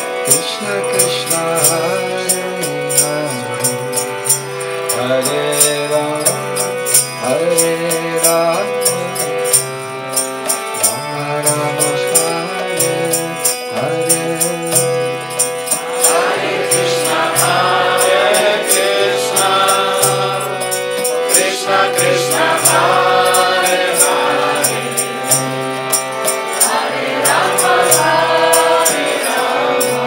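Bengali devotional bhajan sung call-and-response: a man sings the lead over a harmonium's steady drone, with karatalas hand cymbals striking a regular beat. About halfway the group of devotees answers in chorus, and the singing becomes fuller and louder.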